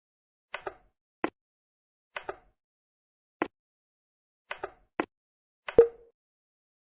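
Plastic toy-train wheels clicking over the track joints of a brick-built train, sharp clicks singly and in close pairs, about ten in all, spaced unevenly.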